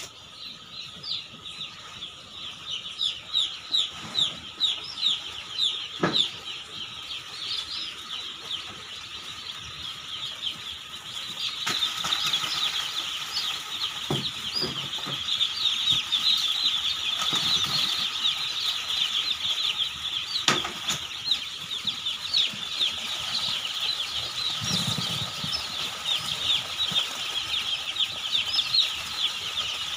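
Hundreds of day-old chicks peeping together in a dense chorus of short, high, falling cheeps, which grows louder about twelve seconds in. A few knocks sound here and there.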